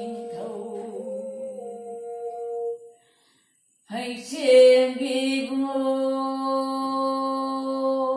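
A woman singing a chant-like melody with a string instrument accompanying. The sound stops for about a second near the middle, then comes back on a long, steady held note.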